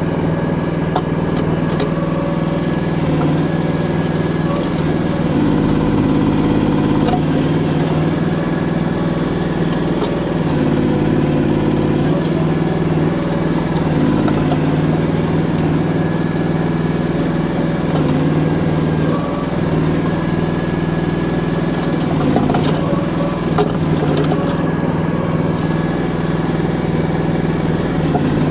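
Mini excavator's small engine running steadily under light digging work, with a few light knocks.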